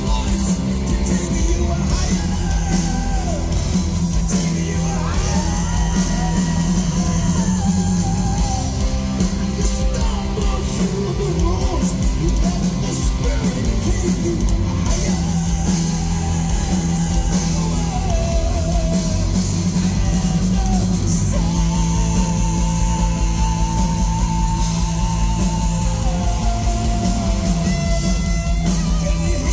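Live heavy metal band playing, with a male lead singer holding long sung notes over distorted electric guitars, drums and keyboards, heard from within the crowd in a large hall.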